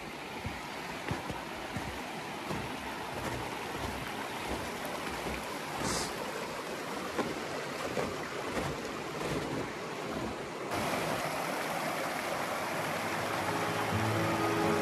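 Steady wind rushing over the microphone on an open mountain ridge. Background music comes in near the end.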